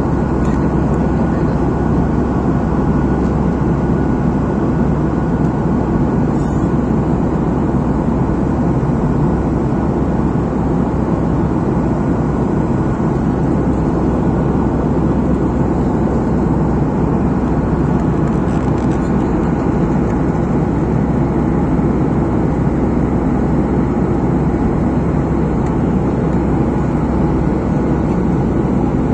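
Jet airliner's engines and airflow heard from inside the passenger cabin in flight: a loud, steady, deep rushing noise with a faint constant whine above it.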